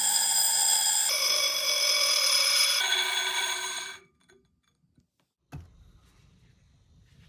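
Background music of bright, bell-like sustained chords that change twice and stop about four seconds in, leaving faint room noise.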